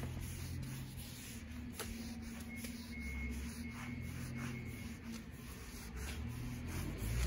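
Cloth-wrapped oiling pad rubbing and wiping along a planed tochi (Japanese horse chestnut) pillar, a soft scuffing, over a low steady hum.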